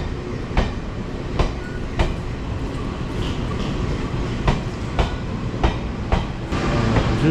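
Long multi-car passenger train rolling slowly past on the station track. Its wheels strike the rail joints in a regular clickety-clack over a steady rumble. The rumble grows louder near the end.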